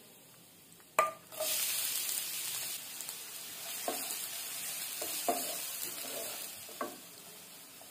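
Chopped onions hitting hot oil in a non-stick kadai: after a sharp knock about a second in, a loud sizzle starts and carries on, easing off near the end. A wooden spatula stirs through them three times as they fry.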